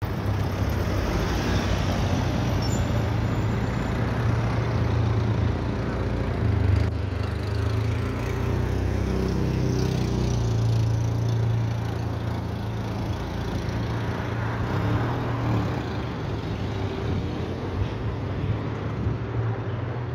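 Road traffic on a city street: cars, a van and buses passing, a steady low hum over a wide noise that stays at an even level.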